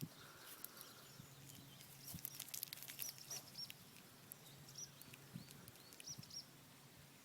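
Faint small-bird chirping: short, high, repeated chirps through the quiet, with a few faint clicks about two to three seconds in.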